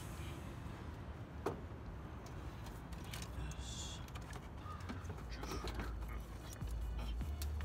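Scattered metal clicks and short creaks from hands working on engine parts on a Toyota 2JZ inline-six during timing-belt removal. Background music with a steady bass beat comes back near the end.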